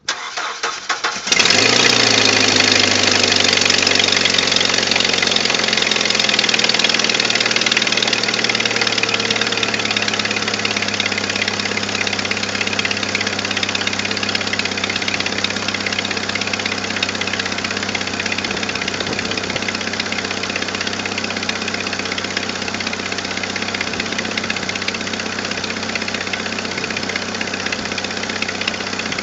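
1997 Jeep Wrangler TJ's 2.5 L four-cylinder engine cranking briefly and starting about a second in. It revs up, then its pitch falls over several seconds and it settles into a steady idle.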